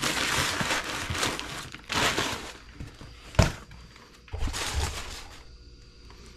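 Brown packing paper and plastic bags rustling and crinkling in bursts as parts are unpacked from a cardboard box, with one sharp knock about halfway through.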